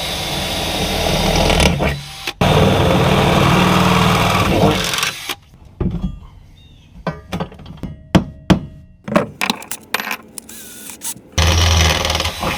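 Power drill running in two long steady bursts, then a stretch of scattered sharp clicks and knocks of tools and metal parts, and the drill starting up again near the end.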